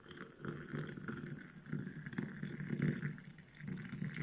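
Just-boiled water being poured from a teapot into a glass, a steady, uneven splashing stream.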